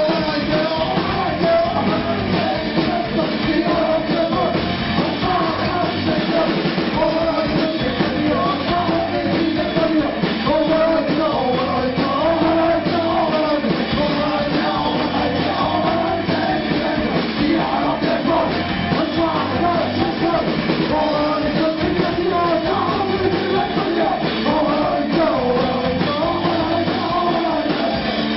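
Live rock band playing loudly, with a man singing and shouting into the microphone over the band.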